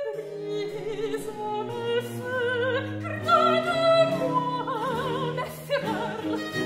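Chamber music: violin over harpsichord and a low bowed string instrument holding bass notes, the upper line played with wide vibrato.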